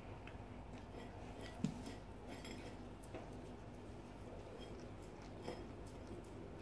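A saluki licking a ceramic plate clean on a hard floor: faint clicks and clinks of tongue and muzzle against the plate as it shifts about, with one sharper knock about a second and a half in.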